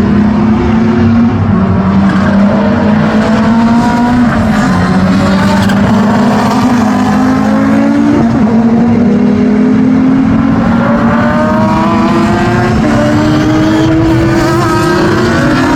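Several historic DTM touring-car engines running at racing speed together, their overlapping notes climbing and dropping back as they shift up through the gears.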